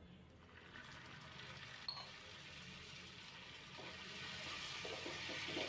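Melted jaggery and ghee sizzling faintly in a hot pan as ginger juice goes in, the sizzle slowly growing louder.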